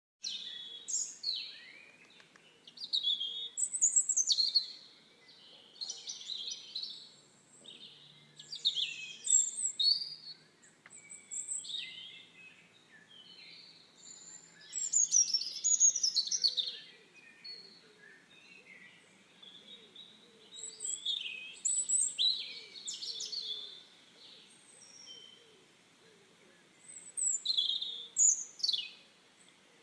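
Songbirds chirping and calling: clusters of quick, high chirps, many falling quickly in pitch, come every few seconds over a faint steady hiss.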